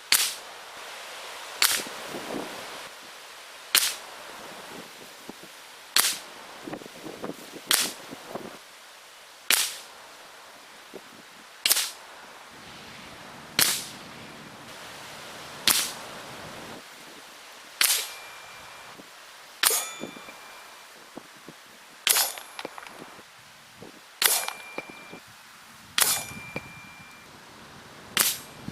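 A shrouded .22 caliber Hatsan AT44 PCP air rifle firing shot after shot, about one sharp report every two seconds. A few of the shots are followed by a brief ringing tone.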